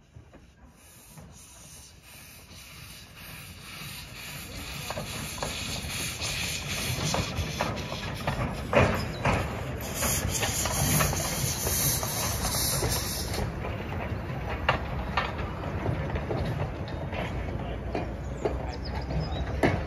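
Small narrow-gauge steam locomotive hauling open carriages past, growing louder as it approaches: steam hissing, with a sharp burst of hiss about ten seconds in that lasts a few seconds, and wheels clicking and knocking over the rails as the carriages roll by.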